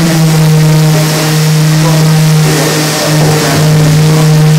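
A motor running with a steady, even-pitched hum, dipping briefly about three seconds in.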